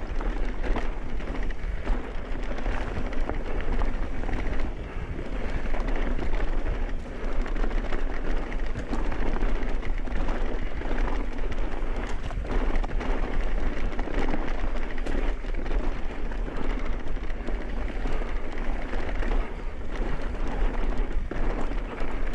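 Electric mountain bike riding down a rocky dirt trail: continuous tyre roll and crunch over dirt and stones, with many small rattles and knocks from the bike, under a steady low wind rumble on the microphone.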